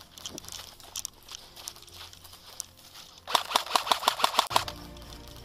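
Airsoft electric rifle (a G36-type AEG) firing one full-auto burst of about ten rapid shots lasting a little over a second, after a few seconds of footsteps and gear rustling in dry grass.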